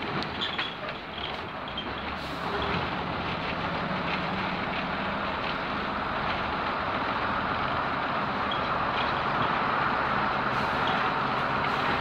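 British Rail Class 121 diesel railcar running at low speed, heard from inside: steady diesel engine and wheel-on-rail noise, with a hiss that grows slightly louder in the second half.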